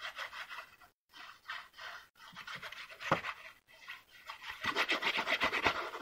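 Liquid craft glue squeezed from the applicator tip of a squeeze bottle and drawn across cardstock in a series of short, scratchy, breathy strokes. The strokes grow busier and louder near the end.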